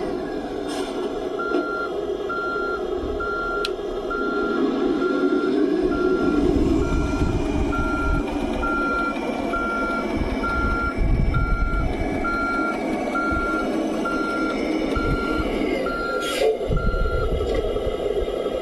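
Reversing beeper of an RC model Mercedes-Benz Arocs truck's sound module, a steady series of about twenty short beeps at one pitch, under a simulated diesel engine running. A few sharp clicks stand out near the start, about four seconds in and near the end.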